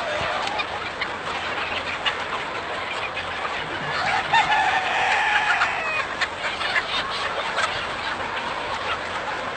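A large flock of chickens clucking all together in a dense, continuous din, with one longer rising-and-falling call about four seconds in.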